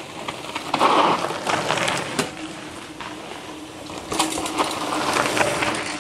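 Two mountain bikes ride past one after the other on a rocky dirt trail: tyres crunching over dirt and stones, with the bikes rattling and clicking. The first passes about a second in and the second about four seconds in.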